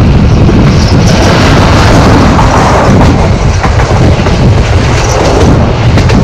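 Loud wind buffeting the microphone over the steady running rumble of a passenger train moving on the rails.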